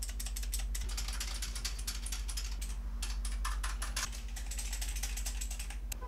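Fast typing on a Royal Kludge RK71 mechanical keyboard: a loud, dense clatter of key clicks, broken by two short pauses a little past the middle.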